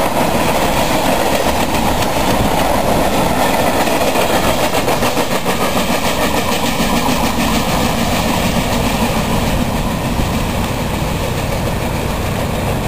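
Freight train cars rolling past, a steady rumble with the wheels clicking rhythmically over the rail joints. The clicking thins out over the last few seconds.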